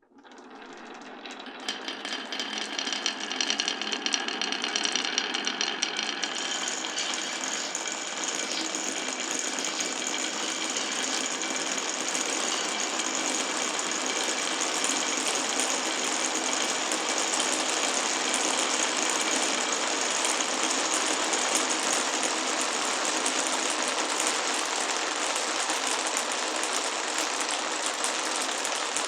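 Many glass marbles rolling and clattering down a wooden marble run. The dense rattle starts suddenly and builds over the first couple of seconds, then runs on steadily.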